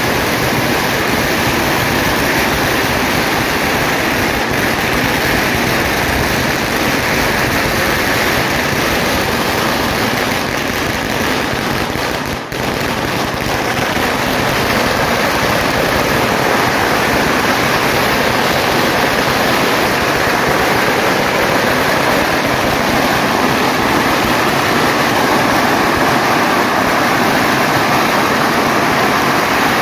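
A long, dense barrage of firecrackers going off without a break, merging into a loud continuous crackling hiss, with a brief dip about twelve seconds in.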